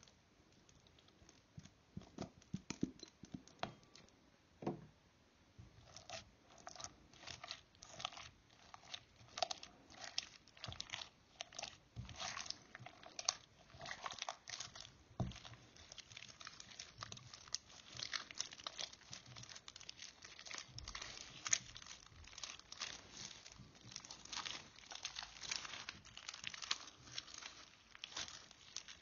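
Green slime with beads mixed in being kneaded and squeezed by hand, giving a dense run of small wet clicks, pops and squelches. The clicks start sparse about a second in and come thick and continuous from about six seconds.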